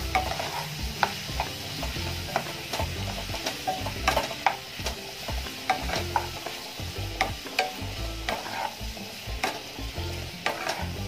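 Spatula stirring chopped onions and green capsicum frying in oil in a nonstick pan: a steady sizzle with irregular scraping and tapping strokes of the spatula against the pan.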